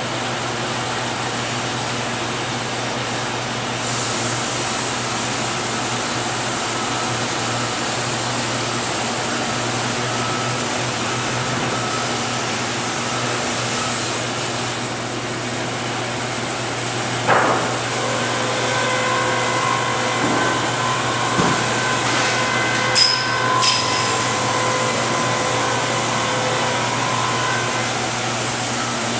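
Wood-Mizer LT50 band sawmill running on its electric motor with a steady hum. Several sharp knocks come a little past halfway, and a thin whine joins over the last third.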